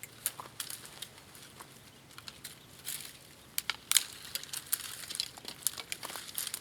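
Dry twigs and kindling crackling and snapping in a string of irregular sharp clicks, the loudest snap about four seconds in.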